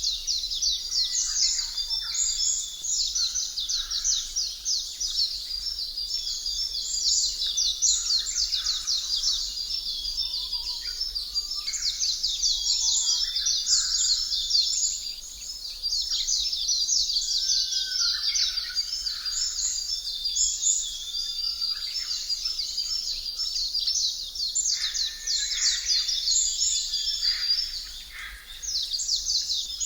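Dense chorus of small birds chirping and twittering without pause, thinning briefly about halfway through and again near the end.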